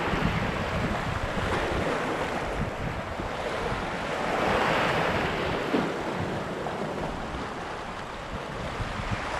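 Sea waves washing against the shore, with wind buffeting the microphone. About halfway through, one wave swells up louder and washes in.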